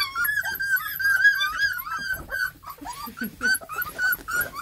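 A litter of three-week-old Bluetick Coonhound puppies whining and squealing together in many overlapping high-pitched cries, with a few lower grunts about three seconds in. These are hungry puppies crying to nurse at feeding time.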